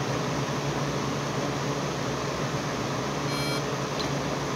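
Steady hum of indoor shooting-range ventilation, with a short electronic start beep about three seconds in: the Mantis X timer cue for a timed holster draw.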